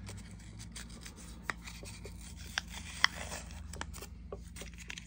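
Sterile paper-and-plastic peel pack of a tattoo ballpoint pen cartridge being peeled open and handled: rubbing and rustling of the packaging, with a few sharp little ticks, the loudest about three seconds in.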